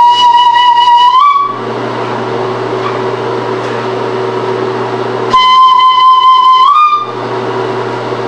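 Flute playing two long held high notes, each about a second and a half, the first at once and the second about five seconds in, the pitch lifting slightly as each note ends. A steady low hum fills the gaps between them.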